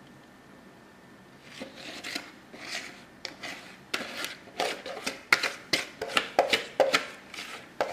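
Quick, repeated scraping strokes against a mixing bowl as the last of the thick pie filling is worked out of it and into the crust. They start about a second and a half in and come faster and sharper toward the end.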